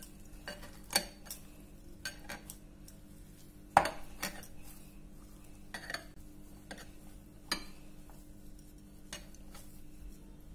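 Besan dough being kneaded by hand in a glass bowl: irregular sharp clinks and knocks of the glass bowl and the kneading hand's metal bangles, the loudest about four seconds in.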